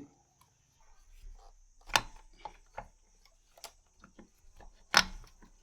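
Scattered clicks and knocks of hands and tools on metal as a motorcycle starter motor is unplugged and worked out of the bike, with two louder knocks about two seconds and five seconds in.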